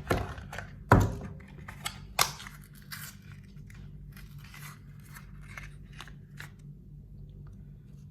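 Packaging being torn open and handled: a run of sharp cracks and rustles, the loudest crack about a second in, stopping after about six and a half seconds. A steady low hum sits underneath.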